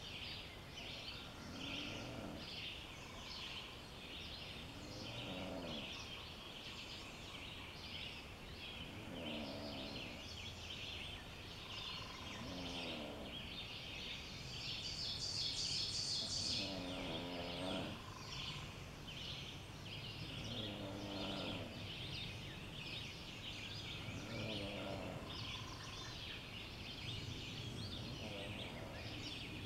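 Forest dawn chorus: many birds chirping on and on. Through it a lower, pitched call that bends up and down repeats about every four seconds, and a louder, higher burst of song comes about halfway through.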